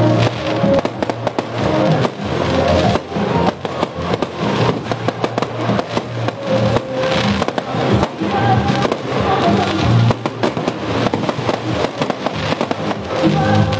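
Fireworks going off in rapid, irregular bangs and crackles, many a second, over music.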